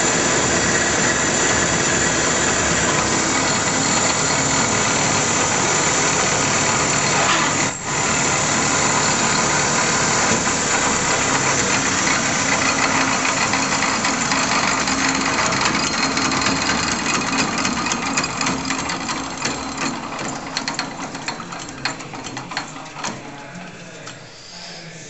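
Powermatic 45 wood lathe with its 3/4 hp three-phase motor running at speed, a steady mechanical whine with a light rattle. Over the last several seconds it winds down, the sound fading with irregular ticks and clatters.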